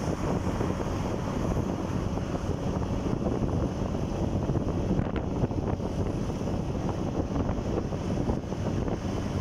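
Heavy wind buffeting on the microphone over the steady road and engine noise of a moving motorcycle.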